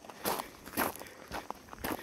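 A person walking on loose gravel, about two footsteps a second.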